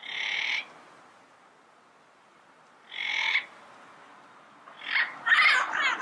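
Yellow-headed parrot calling: two short harsh calls about three seconds apart, then a louder run of rapid squawks starting near the end.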